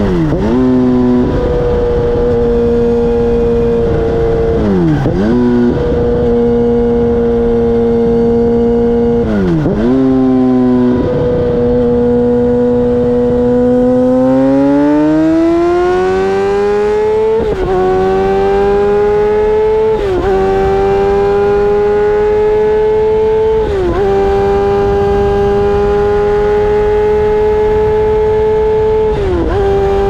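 Suzuki GSX-R1000 inline-four through dual Akrapovic silencers, running at steady road speed. Its pitch dips sharply and recovers several times, and about halfway through it climbs to a higher steady note.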